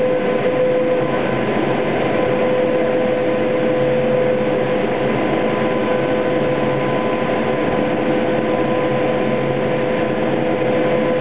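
Steady machine hum with a constant high whine: hydraulic power running while a DC-9-34F's landing gear retracts during a gear swing.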